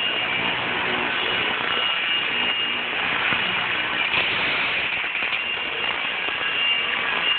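Radio-controlled helicopter hovering, its rotor and motor running with a steady whirring hiss. There is a louder rush about four seconds in, as its downwash blasts packing peanuts out of a cardboard box.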